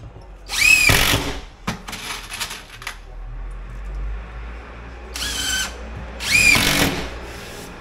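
Compact cordless drill run in four short bursts into an 18mm MDF cabinet carcass, its motor whine rising and falling with each run.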